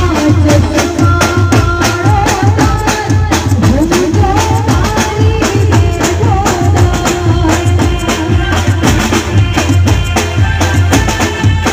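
Live garba band music over a PA: dhol and drum kit beating a steady dance rhythm under keyboard, with a woman singing the wavering melody into a microphone.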